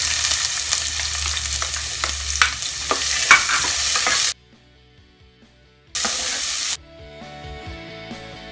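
Chopped onion sizzling loudly in hot oil in a pot as it is tipped in and stirred, with scattered clicks of the stirring utensil against the pot. The sizzle cuts off abruptly after about four seconds, comes back briefly around six seconds, then soft background music takes over.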